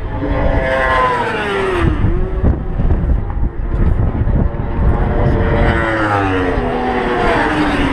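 Racing sport bikes passing at high revs, the engine note falling as each goes by, with another bike's note rising then dropping near the end. Heavy wind buffeting on the microphone.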